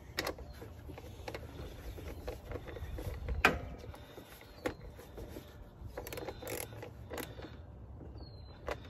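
Hand tools and engine parts being handled in a car's engine bay, giving scattered clicks and knocks, the loudest about three and a half seconds in.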